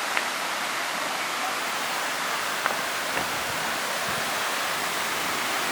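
Waterfall rushing steadily, water pouring over rock, with a couple of faint ticks.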